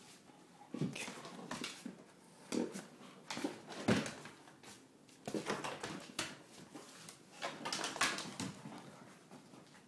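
A dog playing with a ball on a hardwood floor: irregular knocks and scuffles of the ball and the dog's claws on the wood, with a few short dog noises among them.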